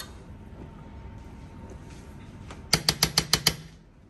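Kitchen utensils clinking on cookware: a quick run of about eight sharp clicks about three seconds in, after a couple of seconds of low kitchen background.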